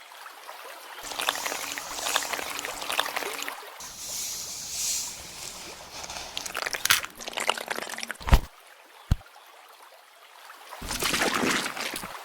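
Water sloshing and trickling in short, edited stretches, with two sharp knocks about eight and nine seconds in.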